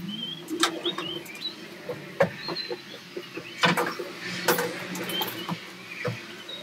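Footsteps, knocks and clunks on the bare steel floor of an empty Transit van's cargo area as a wheeled seat is picked up and handled, with the loudest clunks about halfway through. Small birds chirp now and then.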